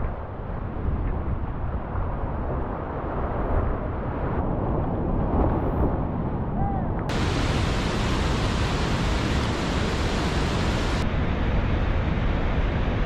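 Whitewater rushing over a waterfall, a dense, steady roar of water with heavy low rumble and splash on the microphone of a kayak-mounted camera. About seven seconds in it cuts to a brighter, even rush of the falls heard from the bank.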